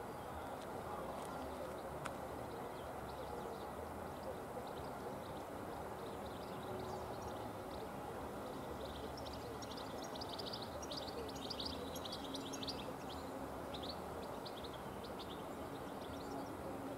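Small birds chirping in a run of quick high calls about halfway through, over a steady low background noise.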